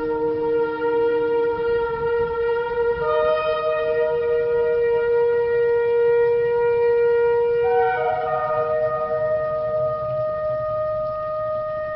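Shofar blown in long sustained blasts. At times two held notes sound together, and the pitch steps up about three seconds in and shifts again near eight seconds.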